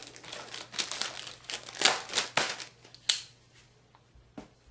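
Plastic packaging crinkling and rustling in irregular bursts as a new laptop is unwrapped, going quiet about three seconds in, with one faint click near the end.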